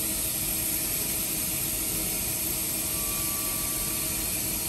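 Steady drone of running machinery, an even rushing noise with a few constant hum tones underneath.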